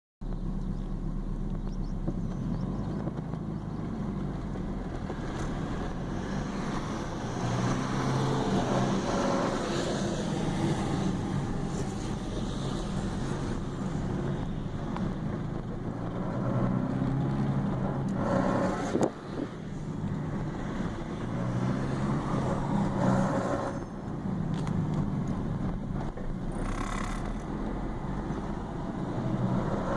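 Ford Escort Mk5 wagon running while being driven, its engine note rising and falling several times as it pulls and eases off, with one brief sharp knock a little past halfway. The owner is chasing a strange noise that he places in the suspension or gearbox, heard only near 2,000 rpm.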